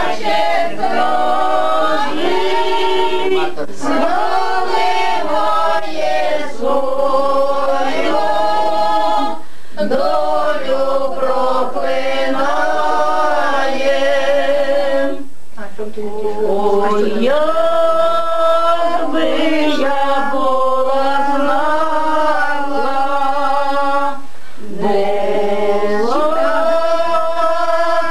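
Several voices singing together without instruments, in long drawn-out phrases with brief pauses between them.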